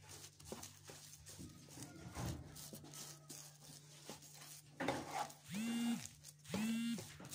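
A wooden spatula scrapes and presses thick semolina dough around a non-stick frying pan, a soft rubbing with light ticks. Near the end, a short pitched sound that rises, holds and falls repeats about once a second and stands out above the scraping.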